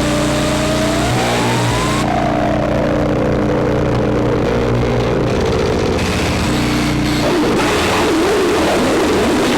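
Electronic drone and noise from small synthesizers, a Bastl Kastle 1.5 and a looped Krackatone run through Pocket Master effects pedals: steady low droning tones under a hiss. A whistling pitch rises for about two seconds, breaks off suddenly, then slides slowly down, and near the end it wobbles up and down.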